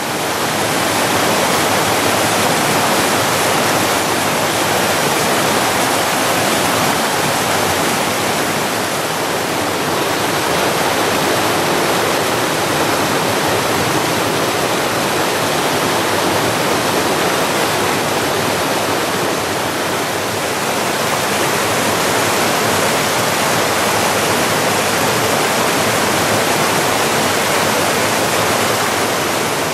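Rushing water, loud and steady throughout, with no breaks or separate events.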